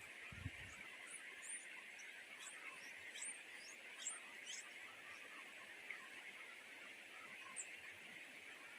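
Nightingale chicks giving a scatter of short, thin, high begging squeaks, mostly in the first half, one more near the end, over a steady outdoor hiss. A brief low thump sounds right at the start.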